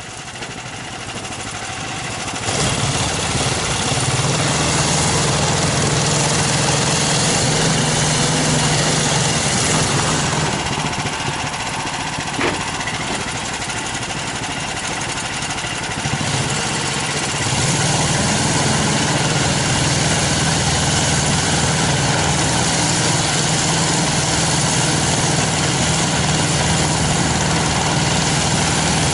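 Small all-terrain vehicle's engine running steadily as it works through deep snow. It builds over the first couple of seconds and runs quieter for several seconds in the middle before picking up again.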